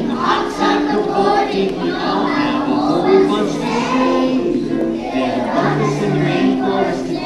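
A children's choir singing a song to musical accompaniment, with held notes changing pitch throughout.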